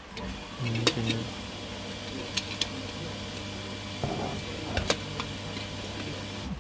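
A plastic-lidded glass tea pitcher being handled: a few sharp clicks and taps of its plastic lid and fittings, over a low steady hum.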